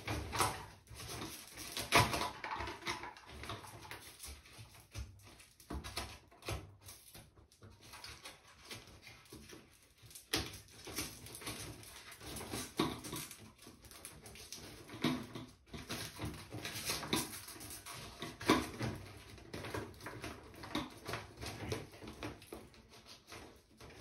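Plastic duct collar and foil flexible vent duct being pushed and twisted together by hand at a ceiling exhaust fan housing: irregular crinkling, scraping and knocks, the loudest knock about two seconds in.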